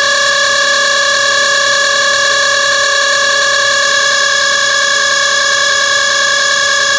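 Radiator cooling fan of a 2008 Toyota Wish running with a loud, steady high-pitched whine: the abnormal noise the fan is making.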